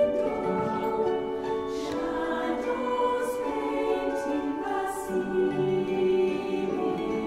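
Background music with a choir singing long, held notes.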